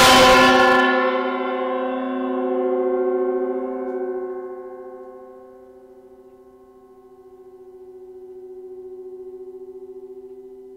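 Handcrafted Nepalese gong ringing out after a strike. The harsh wash of the hit dies away within the first second, then a few deep steady tones carry on, fading slowly with a wavering, pulsing beat and a gentle swell of the tone around the middle and again near the end.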